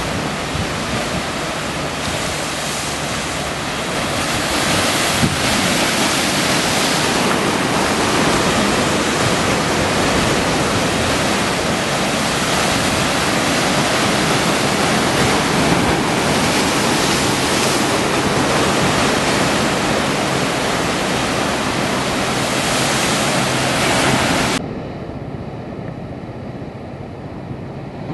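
Ocean waves breaking and washing over a rocky shoreline: a continuous rush of surf that swells irregularly as waves hit the rocks. About three seconds before the end it drops suddenly to quieter, duller surf.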